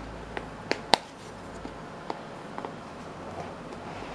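A small cardboard box being handled and turned over in the hands: a few light taps and clicks of fingers and card, the loudest a little under a second in.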